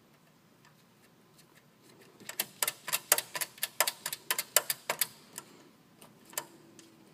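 A quick run of sharp clicks, about five a second for nearly three seconds starting about two seconds in, then two single clicks, as a hex nut is tightened onto a stud holding the control board's mounting bracket.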